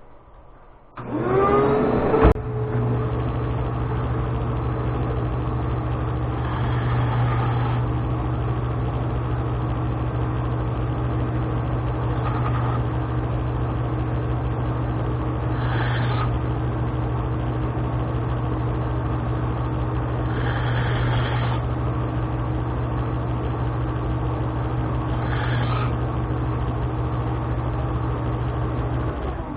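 Electric bench grinder switched on about a second in, spinning up and then running with a steady hum, with about five brief grinding passes as the edges of a steel block are deburred.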